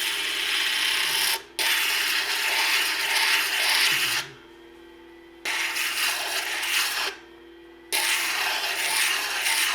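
Turquoise cabochon held against a spinning 180-mesh diamond disc on a wet grinding machine: a loud gritty rasping in four passes, broken by short pauses where only the machine's steady hum is left.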